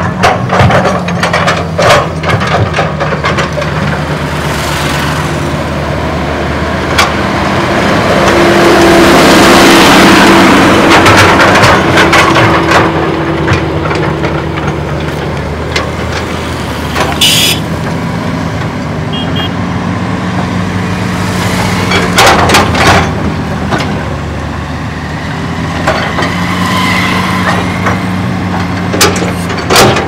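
Hitachi Zaxis 200 excavator's diesel engine running under working load, with scattered clanks and knocks as the bucket digs through earth and debris. The engine works harder and louder for a few seconds about a third of the way through.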